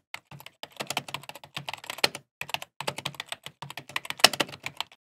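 Typing on a laptop keyboard: a quick, irregular run of key clicks with a couple of short pauses, stopping abruptly near the end.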